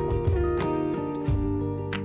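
Background music: plucked acoustic guitar notes over a bass line with a steady beat.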